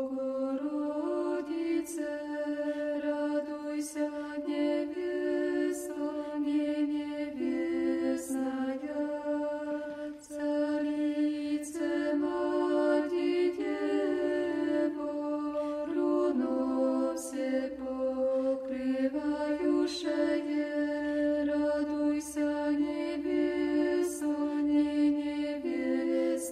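Slow vocal chant in Orthodox church style, a held drone under a melody that moves in steps, with faint ticks about every two seconds.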